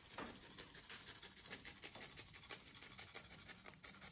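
A tonka bean grated on a fine grater over the tiramisu cream: faint, quick, irregular scratching strokes.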